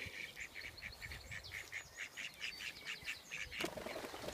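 A small bird chirping faintly and repeatedly, about five short high chirps a second. A brief knock or rustle sounds near the end.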